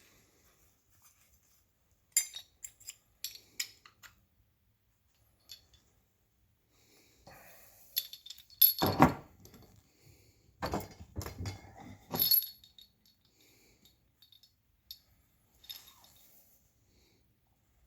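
Metal-on-metal clinking of tools and engine parts being handled on a small-block Chevy bottom end while the main bearing caps are fitted. A quick run of light clinks comes a couple of seconds in, and a few heavier knocks follow near the middle.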